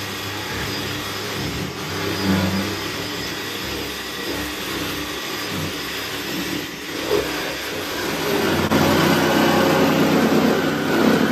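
A power tool cutting through the car's rusty sheet-metal floor pan, running steadily and getting louder about nine seconds in.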